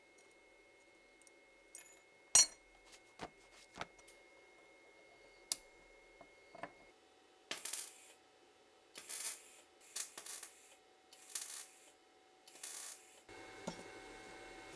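Small steel pistol parts clink and knock against a bench vise, with a sharp metallic clink about two and a half seconds in. In the second half a hand-held hose-fed gun gives five short noisy bursts, each under a second, roughly one a second.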